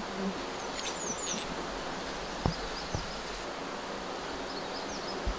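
Steady outdoor background hiss with a few short, falling, high-pitched bird chirps about a second in and fainter chirps later. Two light knocks come near the middle.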